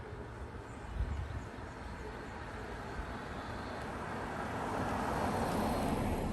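A passing vehicle: its noise swells over a few seconds and then drops away quickly near the end.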